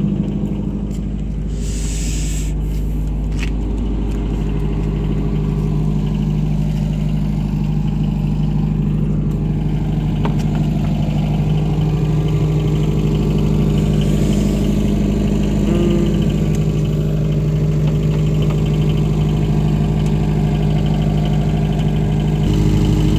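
An 18 kVA generator set's engine running steadily with an even, constant hum. There are brief rustles of handling about two and three seconds in.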